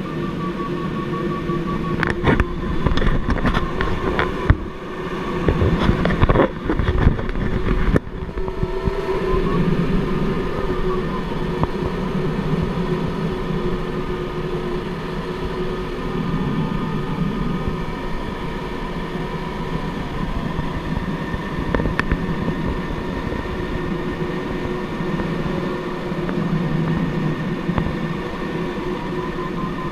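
Glider on aerotow: a steady rush of air with the drone of the towing aircraft's engine, and a faint tone wavering up and down, typical of a glider's audio variometer. For the first several seconds sharp knocks and rattles of buffeting come and go.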